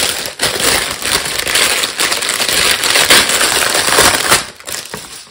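Clear plastic bag crinkling and rustling as a silicone mold is unwrapped from it by hand. The crinkling stops about four and a half seconds in.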